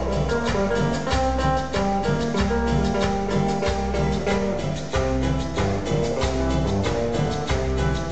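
Dance music played over a sonidero sound system: a guitar-like plucked melody over a steady bass beat and busy percussion.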